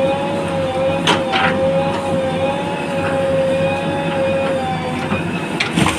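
JCB 3DX backhoe loader's diesel engine running under load with a steady whine while the bucket digs into an earth bank. Sharp knocks come about a second in and again near the end.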